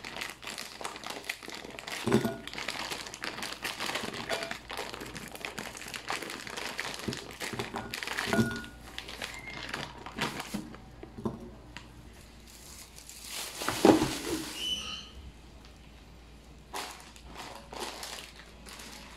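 Plastic bag crinkling as broccoli florets are tipped out of it into a glass bowl. A few louder knocks of pieces dropping in come about 2, 8 and 14 seconds in, the one at 14 seconds the loudest.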